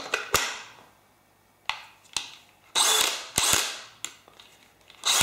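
Sharp plastic clicks and knocks from a DeWalt 18 V 5 Ah battery pack being handled and lifted out, with about a second of rustling near the middle.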